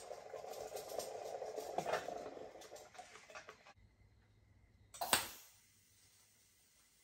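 Arc welding on a modified steel engine oil sump: a sharp crack about five seconds in as the arc strikes, then a faint steady hum while the weld runs. Before it, a few seconds of scattered clicking and rustling shop noise.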